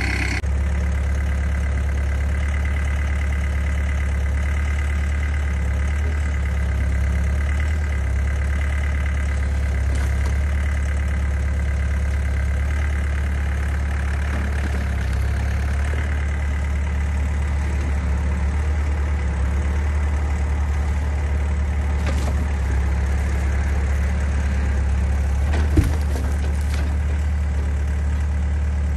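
Wood-Mizer LT15 sawmill engine idling steadily, with no change in load, and a single sharp click about 26 seconds in.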